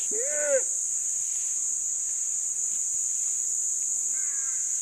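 Steady high-pitched insect drone. A short pitched call rises and falls right at the start, and a fainter one comes near the end.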